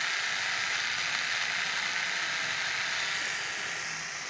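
Handheld battery-powered Kemei epilator running steadily while pressed to facial hair on the cheek, its tweezer head pulling the hairs out by the root. It gets a little quieter near the end as it is drawn away from the skin.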